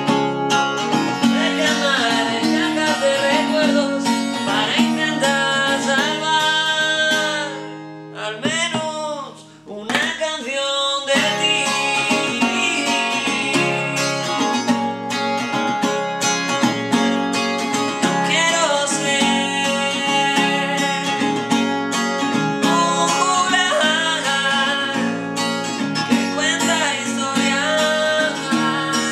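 Steel-string acoustic guitar strummed and picked, with a man singing over it at times. The playing thins out and drops in level briefly about eight seconds in, then picks back up.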